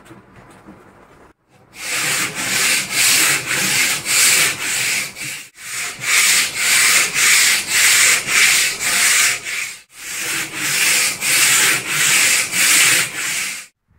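Hand-sanding a hard reddish-wood instrument neck blank: quick back-and-forth scraping strokes, about two a second, in three runs with brief pauses between. The strokes begin after a quiet second and a half.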